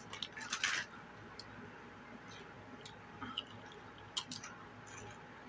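Doritos tortilla chips being bitten and chewed close to the microphone: a burst of crackly crunching in the first second, then quieter chewing with a few single sharp crunches.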